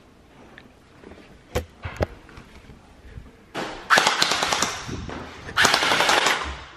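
Electric MP5-style gel blaster firing on full auto: two bursts of rapid clicking fire, the first about a second and a half long and the second about a second, each with its motor rattle. Two light single clicks come before them.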